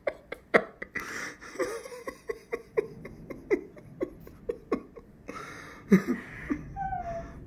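A woman crying with her face in her hands, in short, irregular catching sobs and breaths, with a brief voiced whimper near the end.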